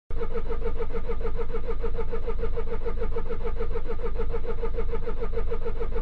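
Van's starter motor cranking the engine over in a steady rhythm, about eight strokes a second, without the engine catching: the van will not start, which is put down to a flat battery.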